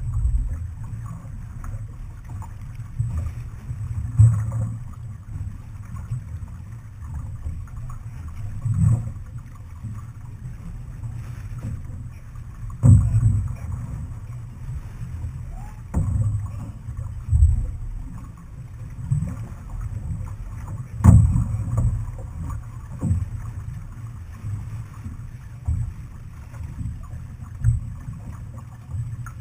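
Outrigger canoe under paddle, heard from a stern-mounted camera: a steady low wind rumble on the microphone with water noise along the hull, and a dull thump every few seconds.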